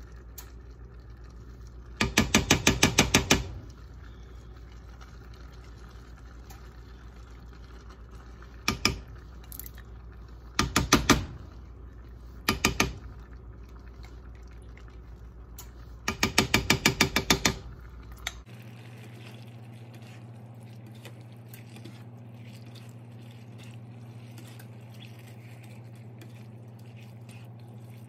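Silicone spatula scraping thick sauce out of a glass measuring cup over a cast-iron skillet, in several short bursts of rapid, juddering scraping strokes, over a steady low hum.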